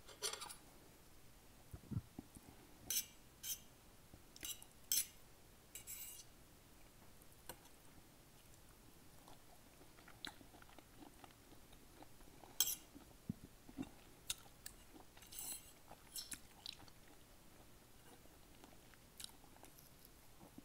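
Close-miked eating sounds: wet mouth clicks, smacks and crackles of chewing, coming in irregular clusters with quiet gaps between, plus a couple of soft low knocks.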